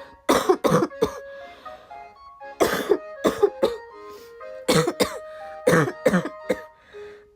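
A young woman coughing in repeated fits, clusters of two to four hard coughs every second or two: a persistent cough that she says won't stop.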